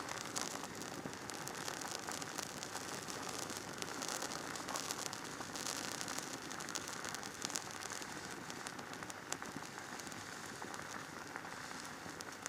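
Wood campfire crackling under a pot of vegetables simmering in water: a steady hiss dotted with many small crackles and pops.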